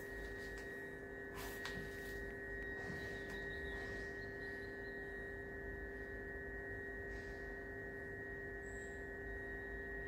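Steady hum of a few fixed tones, one low and two higher, with a few faint clicks and knocks in the first few seconds from handling a sealant tube.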